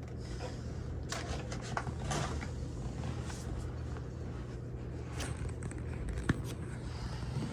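Small hand-handling noises: rustling, light scraping and clicks of small plastic RC truck parts being worked on, with one sharp click about six seconds in, over a steady low hum.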